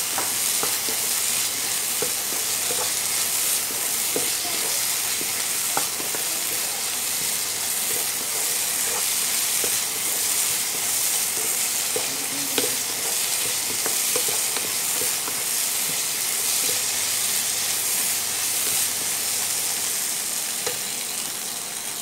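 Shallots, onions and mutton pieces sizzling steadily as they fry in a pan, with the scrape and knock of a wooden spatula stirring them.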